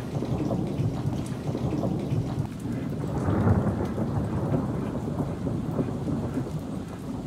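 Heavy rain pouring down, with a low rumble of thunder that swells about three seconds in.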